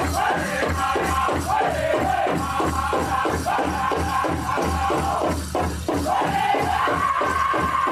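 Powwow drum group singing a Men's Chicken Dance contest song: voices in unison, pitched high, over a large powwow drum struck in a fast, steady beat.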